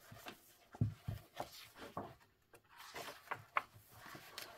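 Pages of a coloring book being turned and pressed flat by hand: paper rustling with several soft thumps in the first two seconds and a longer rustle about three seconds in.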